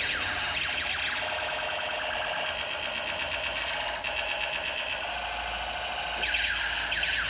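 Electronic siren-like sound effect from a battery-powered toy: rapidly repeating rising warbles, steadier in the middle, then sweeping again near the end.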